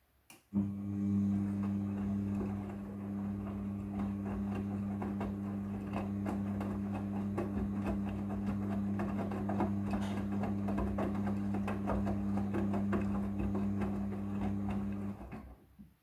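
Midea front-loading washing machine's drum motor starting with a click and running with a steady low hum for about fifteen seconds as the drum tumbles a wet blanket, with a busy clatter of small knocks from the load, then stopping abruptly near the end.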